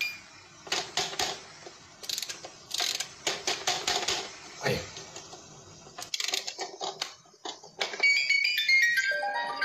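Electronic sound effects: a dense run of clicks and rattles, then near the end a quick run of chime notes stepping down in pitch, like a ringtone or doorbell jingle.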